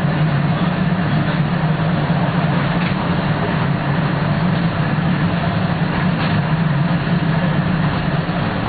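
Tram running along its track, heard from inside the car: a steady running noise of wheels and drive with a constant low hum.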